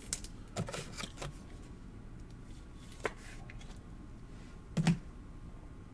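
Soft handling noises of a trading card and its clear plastic holder: a few faint clicks and rustles, a single click about three seconds in, and a brief louder bump just before the end.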